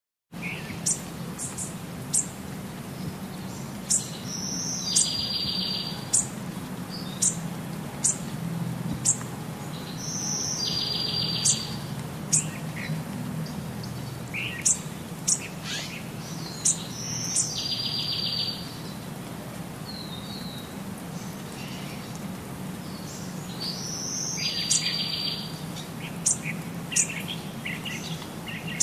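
A songbird calling: many short, sharp, high chirps, with a buzzy trilled phrase about every six seconds, over a steady low hum.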